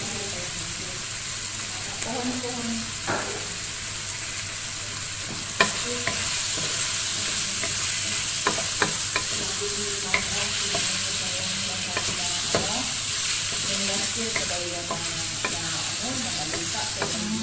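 Chicken pieces, onion and garlic sizzling in a hot wok with a steady hiss, stirred with a wooden spatula that scrapes and knocks against the pan every so often.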